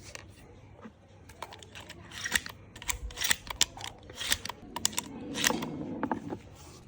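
Sharp metallic clicks and clacks from handling a Sarsilmaz SA-X700 12-gauge semi-automatic shotgun, coming irregularly over several seconds and thickest about five seconds in.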